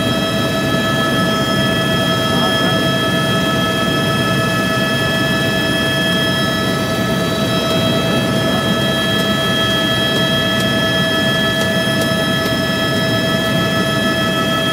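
Helicopter in flight, heard from inside the cabin: a steady low drone of engine and rotor, with a steady whine over it that does not change.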